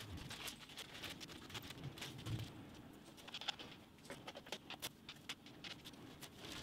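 Faint, quick clicks and rustles of bed-frame parts, hardware and plastic wrapping being handled and unpacked, with a thud about two seconds in.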